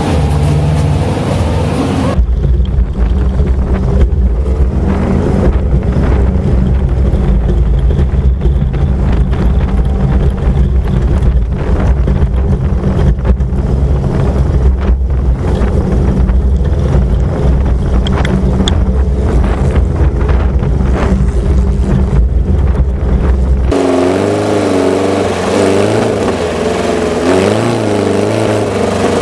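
Volkswagen Baja Bug engine driven hard on a dirt trail, with a heavy deep rumble and a rapid crackle. About 24 seconds in the sound changes, and the engine note rises and falls as it revs.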